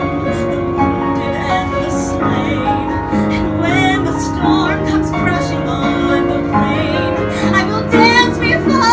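A woman singing a slow musical-theatre ballad with piano accompaniment, her held notes wavering with vibrato.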